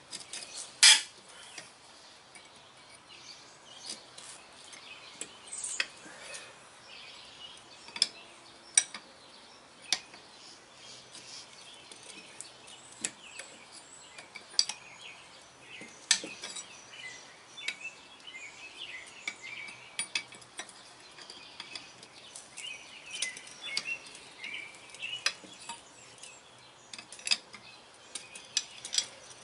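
Steel hand tools clinking and knocking against the clevis and threaded pushrod of a truck brake chamber as wrenches work the rusted clevis loose: irregular sharp metal clinks, the loudest about a second in.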